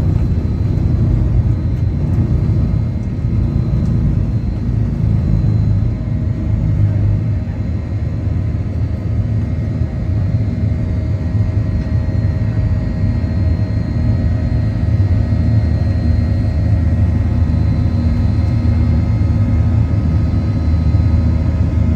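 Boeing 737-900 cabin noise during departure: a steady low rumble of the CFM56-7B jet engines and airflow, heard from inside the cabin, with faint steady whines above it.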